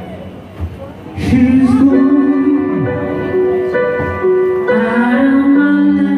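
Live band music: a singer holding long notes over the band's accompaniment. Quieter for the first second, then it comes in fuller and louder.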